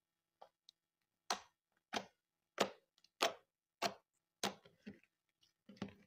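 Clear slime mixed with makeup being pressed and worked by hand, giving a run of six sharp pops about two-thirds of a second apart, with a few smaller clicks around them.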